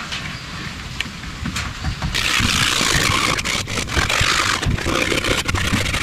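Scrubbing and scraping at old duct-tape residue on a cracked plastic jet ski cover: rhythmic rubbing strokes at first, turning into a louder, harsher, continuous scraping about two seconds in.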